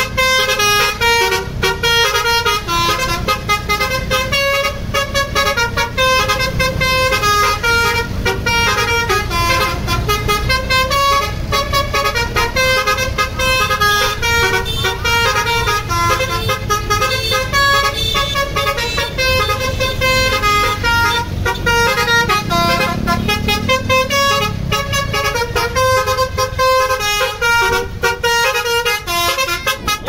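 Tour bus's multi-tone 'telolet' Basuri air horn playing a fast melody of short, stepping notes, with the bus engine running underneath.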